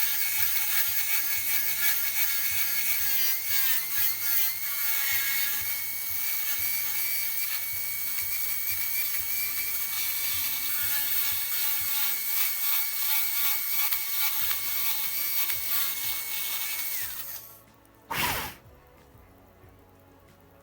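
Dental drill (handpiece) whining steadily as it cuts, with the pitch wavering briefly a few seconds in, while the class 1 cavity in a lower molar is given its final widening; it spins down about three quarters of the way through, followed by a short loud burst of noise.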